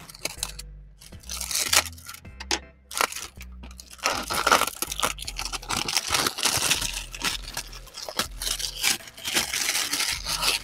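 Packaging crinkling and tearing in irregular spells as it is handled and opened, over background music with a steady bass line.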